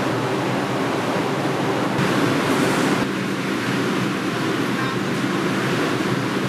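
Steady rushing noise with a low hum from a stopped R142 subway train's rooftop air conditioning and auxiliary equipment, doors open at the platform. A brief hissing swell rises and falls about two seconds in.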